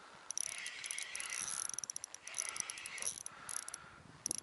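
Spinning reel being cranked in short spells, its gears whirring with rapid fine clicks, while a hooked fish is reeled in.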